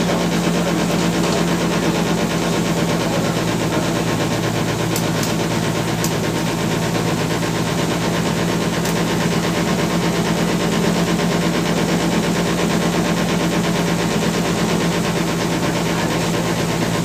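Small passenger ferry's engine running at a steady drone while under way, with the wash of water along the hull.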